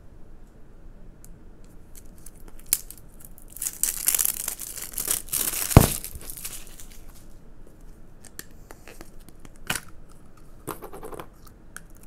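Plastic wrapping being torn and crinkled off a tub of putty for a few seconds, with one sharp snap near the middle as the loudest sound. A few lighter clicks and rustles follow as the tub is opened.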